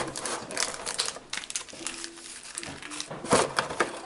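Pokémon booster packs and a clear plastic packaging tray crinkling and clicking as they are handled, with many small crackles throughout.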